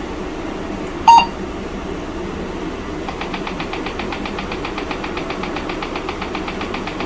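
An Apple II emulator's single short boot beep, then from about three seconds in a rapid, even clicking that keeps going, like the emulated Disk II floppy drive. A steady low hum runs underneath.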